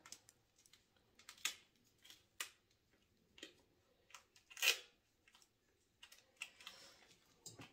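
Scattered small clicks, crinkles and taps of duct tape being pressed and wrapped around a flashlight and a plastic part, with one short, louder scrape of tape a little past halfway.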